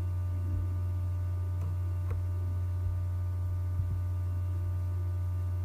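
Steady electrical hum on the recording, a low drone with fainter whining tones above it, broken by a few faint clicks.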